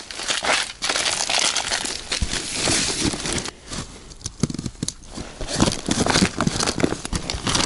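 Fabric of an insulated ice-fishing tent and its floor rustling and crinkling as it is handled, pulled and smoothed by hand. The noise runs on continuously, quieter for a moment about halfway through.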